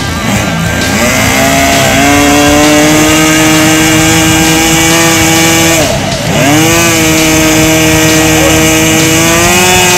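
Small combustion engine of an RC Cessna model airplane starting up about a second in, its pitch climbing briefly and then holding steady. About six seconds in the engine note dips sharply and picks back up, and it rises a little again near the end.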